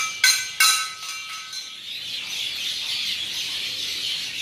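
Hanging metal temple bell struck about three times in quick succession, its ringing dying away within about two seconds. Birds chirp steadily in the background after that.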